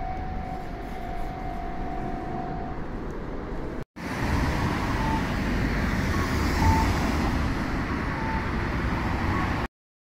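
A passing train's running noise with a steady high whine, which stops about three seconds in. After a brief cut comes steady road traffic with cars passing, which ends abruptly near the end.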